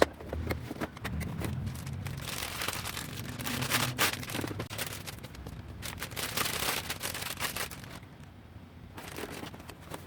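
Packaging being handled: crinkling and rustling with many sharp clicks and knocks, one sharper click about four seconds in.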